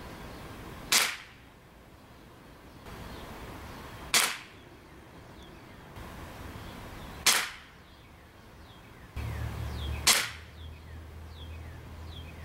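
Ruger Blackhawk Elite .177 spring-piston air rifle firing four shots about three seconds apart, each a single sharp report with a short ring-off.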